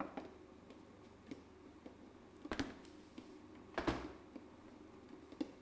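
Old planetary stand mixer running on first speed, its flat beater working butter, sugar and flour into a dough in an aluminium bowl: a faint steady hum with a few small ticks and two sharper knocks, one midway and one a little later.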